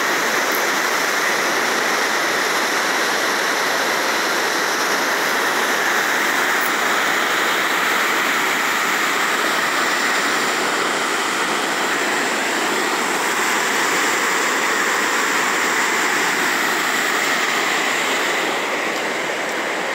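River water rushing steadily through the open gates of a dam on the Fox River.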